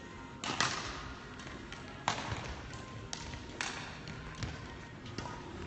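Badminton rackets striking shuttlecocks in play, about half a dozen sharp hits at uneven intervals roughly a second apart, each echoing in the sports hall.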